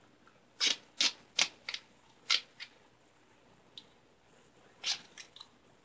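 A run of short, sharp crackles as gaffer's tape is pulled and pressed onto the hinge of a polyfoam puppet mouth. There are six quick ones in the first three seconds, then a pause, then three more about five seconds in.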